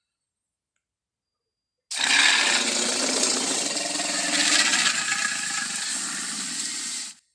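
Tyrannosaurus rex roar sound effect: one long, rasping roar that starts abruptly about two seconds in, holds for about five seconds, and cuts off.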